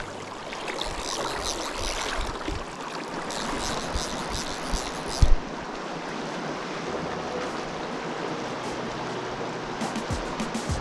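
River water rushing steadily around a packraft, with splashy crackle in the first half and one sharp thump about five seconds in.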